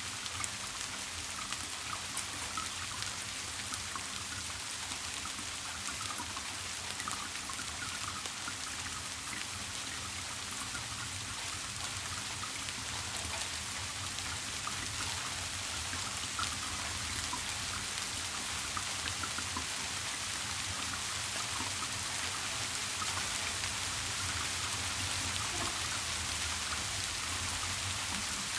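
Steady rain falling, with many small drops pattering against a constant hiss. A faint low steady hum runs underneath.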